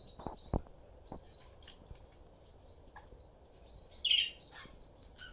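Quaker parrot chirping in strings of short, quick high chirps, with one louder harsh call about four seconds in. A couple of low thumps come in the first second.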